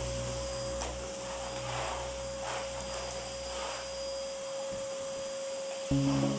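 Canister vacuum cleaner running with a steady whine, with airy swells of suction noise as the nozzle is worked over the floor. Background music with low sustained notes fades out a little past the middle and comes back louder near the end.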